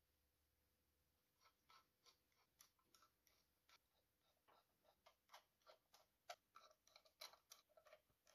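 Flat-blade screwdriver working the steel slotted screws on a Ford Model T clutch drum: a string of faint, irregular metallic ticks and clicks, starting about a second and a half in.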